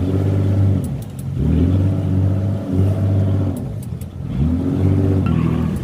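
Bumboat's diesel engine revving up and easing off several times as the boat is manoeuvred in alongside a jetty, with a few faint clicks.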